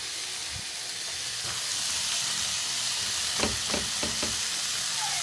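Raw pork belly slices sizzling in hot oil in a frying pan, just starting to fry toward crisp and golden brown; the sizzle grows a little louder about two seconds in. A few light clicks of a utensil against the pan come a little past halfway.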